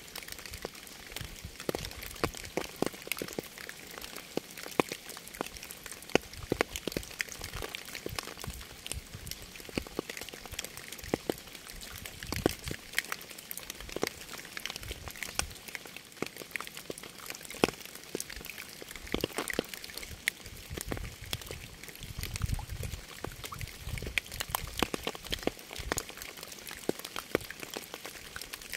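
Steady rain with many individual drops pattering irregularly on a surface, some close drops louder and sharper than the rest. A low rumble comes in for a few seconds about three-quarters through.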